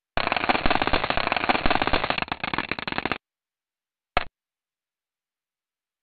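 Sonified spacecraft recording presented as the sound of a comet: a dense, rapid crackling that cuts off abruptly after about three seconds, followed by one brief blip about a second later.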